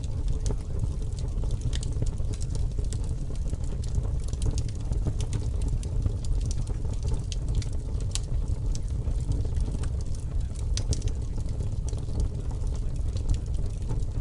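Steady low rumbling noise with irregular crackles and pops scattered throughout: a continuous ambient sound bed.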